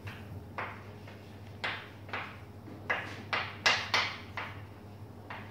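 Chalk writing on a blackboard: about nine short scratching strokes and taps of the chalk as words are written, the loudest cluster in the middle, over a steady low room hum.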